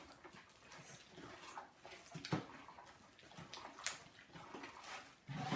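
Homemade glue-and-detergent slime being kneaded and stretched by hand: faint, irregular wet squelches and small crackling pops.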